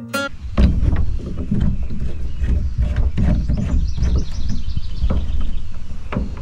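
Low, gusty rumble of wind on the microphone, with scattered knocks and clunks of gear being handled against a metal jon boat. A short run of high, falling chirps sounds in the middle.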